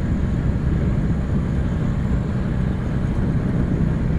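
Toyota Lite Ace van driving on a dirt road: a steady low rumble of engine and tyres.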